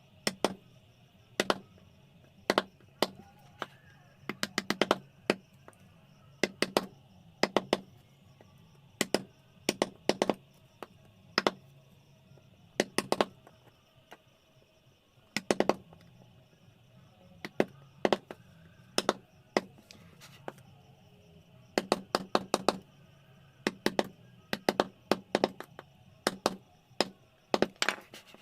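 Sharp taps of a mallet driving a carving chisel into wood, coming in irregular runs of a few strikes with short pauses between.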